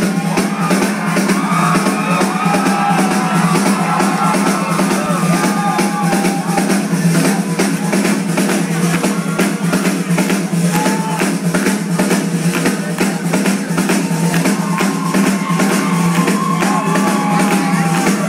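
Rock drum kit played live over a concert PA, a dense, steady run of hits that stays loud throughout.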